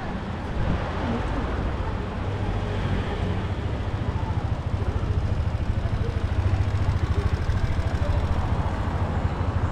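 Steady low rumble of a motor vehicle's engine running close by, with a fast, even pulsing that sets in about three seconds in, over general street background noise.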